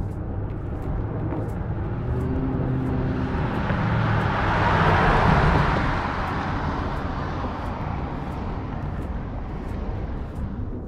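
A 1940 Ford Coupe restomod with a Chevy LS2 6.0-litre V8 driving past. The engine and road noise swell as it approaches, are loudest about five seconds in, and fade as the car pulls away.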